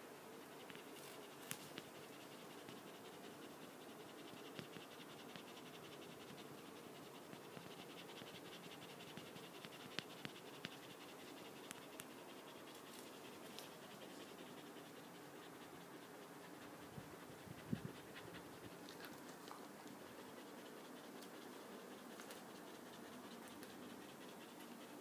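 Faint scratching and light rustling from a Samoyed puppy, with a scattered series of sharp clicks and a louder knock about eighteen seconds in.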